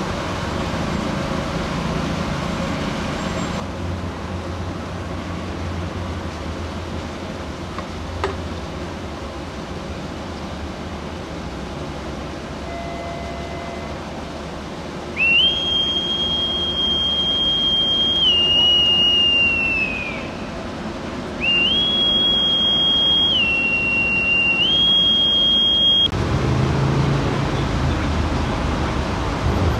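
A shrill whistle sounds twice over steady outdoor background noise. Starting about halfway through, a long high note steps down to a slightly lower one and glides off at its end. After a short gap, a second long blow alternates between the same two notes.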